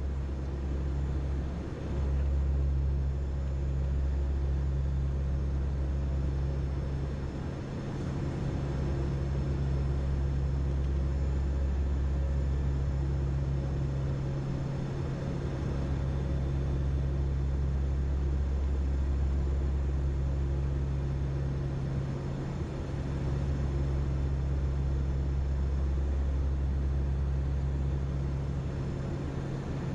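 Steady low drone of an aircraft's engines heard from inside the cockpit, dipping slightly in level a few times.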